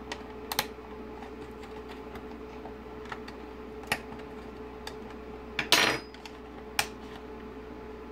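Metal teaspoon clicking against a car instrument cluster's plastic dial face while prying off a gauge needle: a few sharp separate clicks, with a longer, louder rattle of metal and plastic just before six seconds in. A steady low hum runs underneath.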